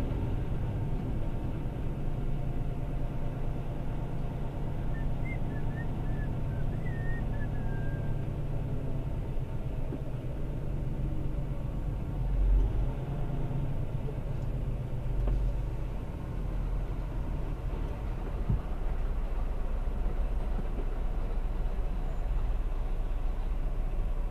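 Diesel semi-truck engine running steadily with low road rumble, heard from inside the cab as the truck rolls slowly at low speed. The rumble swells briefly about twelve seconds in.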